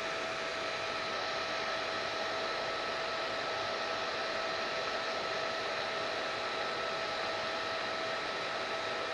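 Hair dryer running steadily: an even rushing of air with a steady motor whine.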